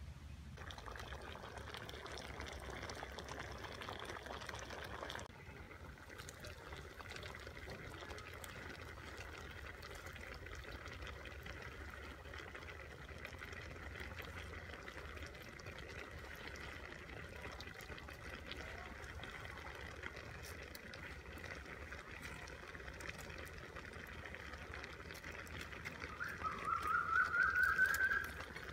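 Cassava curry bubbling and simmering in a wok over a firewood fire, a steady watery burble. Near the end, a quick run of loud short chirps climbs in pitch.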